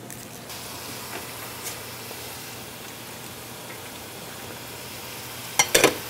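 Yuca chips deep-frying in a pot of canola oil at 350 °F, a steady rain-like sizzle. A brief clatter of sharp knocks near the end.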